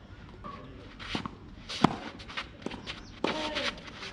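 A tennis player's quick footsteps and shoe scuffs on a sand-covered artificial-grass court, with one sharp, loud knock of a tennis ball about two seconds in.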